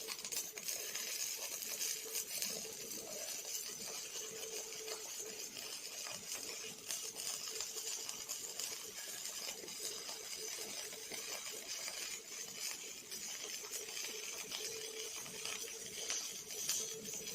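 Robotic arc welding: a steady crackling sizzle from the welding arc, with a steady hum underneath.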